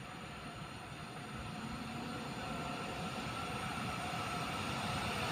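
Siemens EU44 'Husarz' electric locomotive hauling an EIC express passenger train on approach, the rumble of the train on the rails growing steadily louder as it nears.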